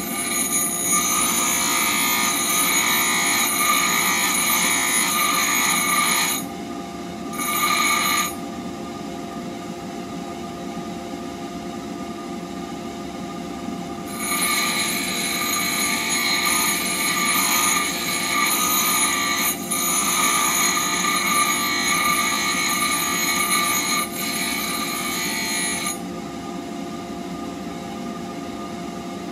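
Bench grinder running steadily while a steel blade blank for a woodturner's cutting tool is pressed against its wheel: a loud, high-pitched grinding screech for about six seconds, a short touch a second later, then a longer pass of about twelve seconds. Between passes only the grinder motor's steady hum is heard.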